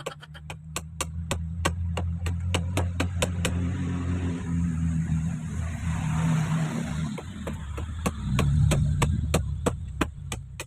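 A small motor running with a steady low hum, with rapid, evenly spaced clicking, about five or six a second.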